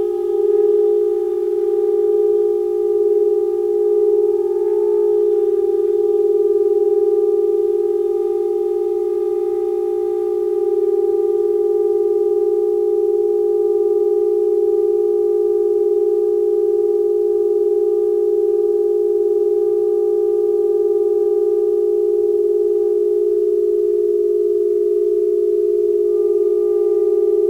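Sustained drone in just intonation from saxophone quartet and electronics: one loud steady tone held unbroken, with fainter higher tones above it that grow stronger near the end.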